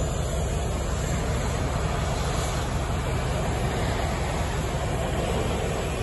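Heavy military vehicles driving: tanks and trucks giving a steady low engine rumble.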